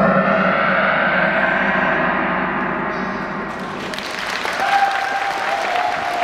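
Music ends on a final struck chord that rings and slowly fades, and audience applause starts about three and a half seconds in.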